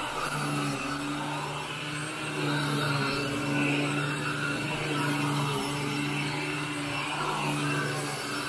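Upright vacuum cleaner running on carpet, pushed back and forth, a steady motor hum with brush and suction noise.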